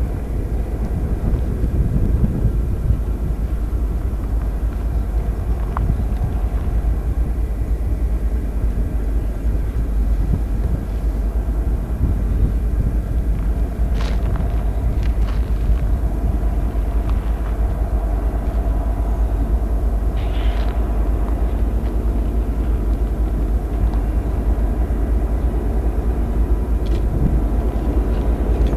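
Diesel freight locomotives of a Union Pacific manifest train running on a downgrade, a steady low rumble throughout.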